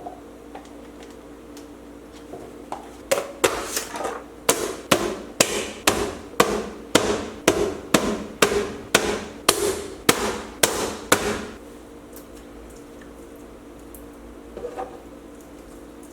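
A run of sharp, evenly spaced knocks, about two a second, starting about three seconds in and stopping a few seconds before the end.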